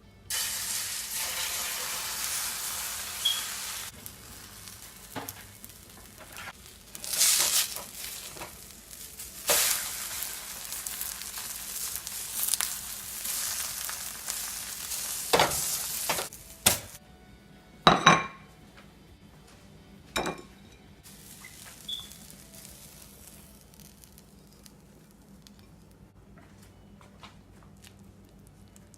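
Food sizzling in a frying pan for about sixteen seconds, swelling now and then as it is stirred. A few sharp clinks and knocks of utensils or dishes follow, then it goes quiet.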